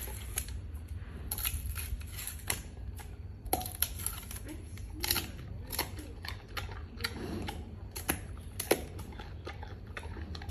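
Giant panda chewing and biting through bamboo stalks: irregular sharp cracks and crunches, several strongest near the middle and end, over a steady low hum.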